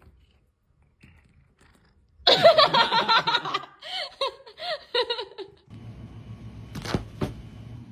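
A person laughing loudly, starting about two seconds in: a hearty burst, then a few shorter pulses of laughter. After it comes a low steady hum, with one sharp click near the end.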